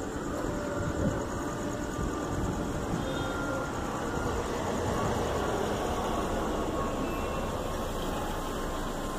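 Bombardier Challenger business jet passing over at altitude: a steady jet noise that swells slightly about halfway through and eases toward the end.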